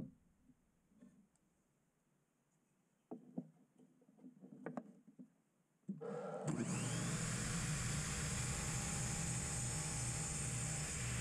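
A few light wooden knocks as blocks are set against the fence. About six seconds in, a miter saw's motor starts up and runs at full speed as the blade cuts through a wooden block at an angle.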